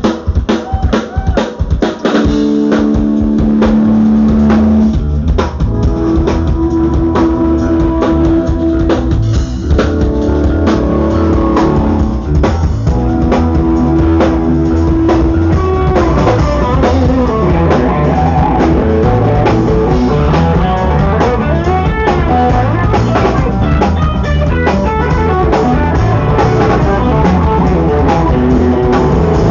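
Rock band playing: drums alone for about the first two seconds, then guitar comes in with held notes over a steady drum beat.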